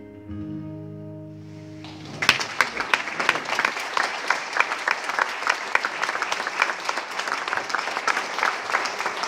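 The song's last chord on acoustic guitar rings and fades. About two seconds in, an audience breaks into applause that keeps going, dense clapping.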